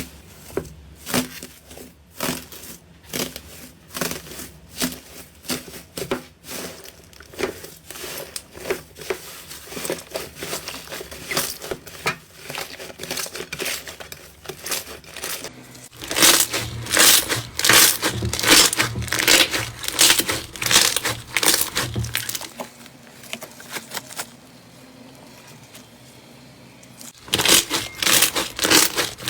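Slime being pressed and squished by hand, making quick crackling clicks and crinkles. The clicking gets louder and denser about halfway through, drops to a faint stretch a few seconds later, and turns loud again near the end.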